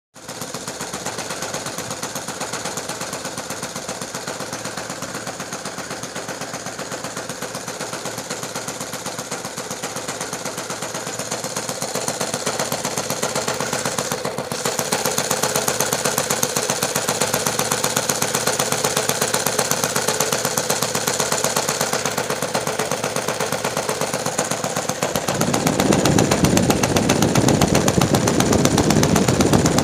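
YS 110 FZ supercharged four-stroke glow engine of an RC model airplane idling steadily after a tune-up and resealing, a fast, even stream of exhaust pulses. It turns louder and deeper about 25 seconds in, heard close to the muffler.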